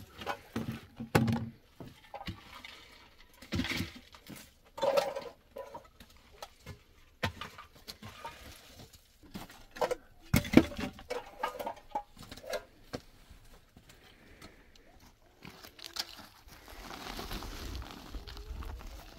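Hollow concrete blocks knocking and scraping against one another and on stony ground as they are lifted and set down, in irregular clatters. Near the end, a steady rustling of a paper cement sack being handled.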